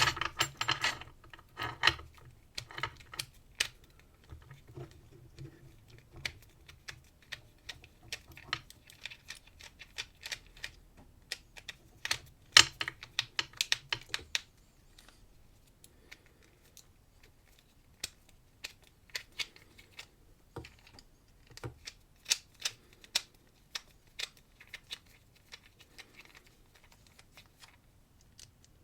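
Small metal padlock parts and hand tools being handled: irregular light clicks and taps, thick in the first half with one sharper knock about halfway, then sparser after a short pause.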